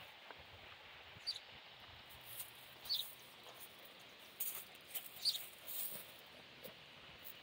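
Faint, short high chirps of a small bird, three in a few seconds, each a quick falling note, with soft rustles from a hand stroking a puppy's fur.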